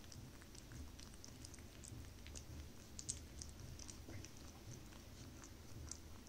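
Puppy licking and chewing food from a person's fingers: faint, irregular wet mouth clicks and smacks, with one louder click about three seconds in.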